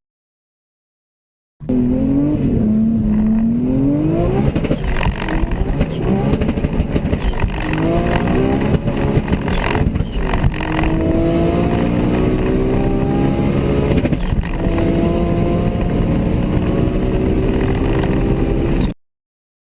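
High-performance car accelerating hard under full throttle. The engine note climbs in pitch and drops back at each gear change, several times in a row.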